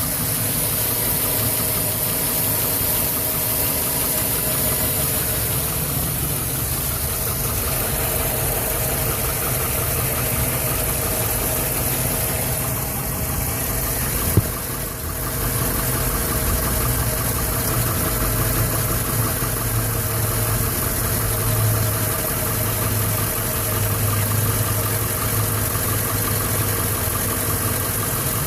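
2011 Chevrolet Silverado's 5.3-litre Vortec V8 idling roughly and unevenly, with a shudder and wonky noises, after a hard start. A single sharp click sounds about halfway through.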